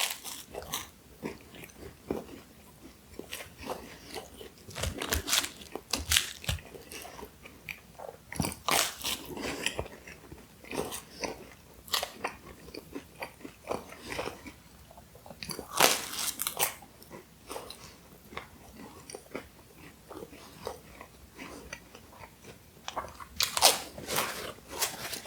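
A person biting and chewing a breadstick close to the microphone: irregular bites and chewing, with the loudest bites about two-thirds of the way through and again near the end.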